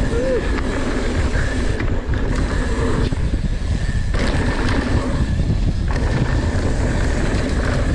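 Mountain bike descending a dirt bike-park trail: a steady rumble of tyres on dirt and wind on the microphone.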